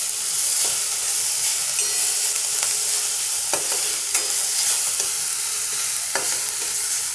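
Hot oil sizzling steadily in a stainless-steel kadai as chopped garlic, ginger, green chillies, cumin and curry leaves fry, with a metal spatula stirring and scraping, knocking against the pan a few times.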